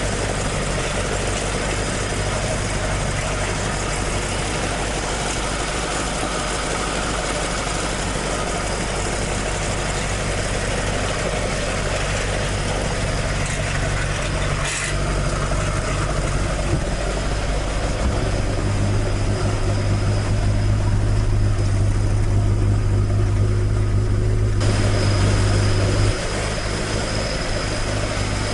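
Toyota AE86's 4A-G twin-cam four-cylinder engine idling steadily through its exhaust. The note grows a little louder for several seconds in the second half, then drops back suddenly.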